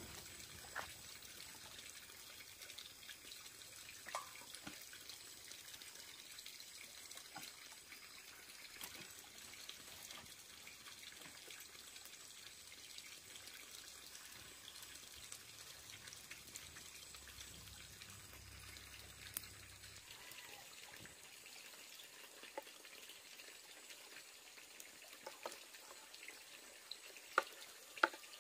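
Faint trickling water, with a few scattered clicks and knocks; the sharpest come near the end.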